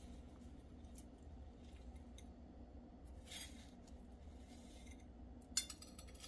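Faint crunching rustle of crushed corn flakes as a raw egg-washed chicken strip is pressed and turned in them, with a few sharp clicks near the end.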